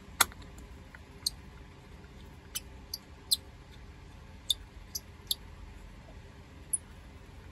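Light, sharp clicks of small metal parts being handled: an aluminium pulley and its socket-head screws knocking together in the hand, about nine clicks at irregular spacing, the loudest just after the start.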